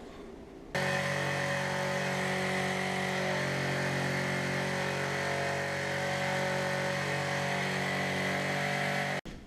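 Electric power saw motor running at a steady speed, starting abruptly about a second in and cutting off just before the end.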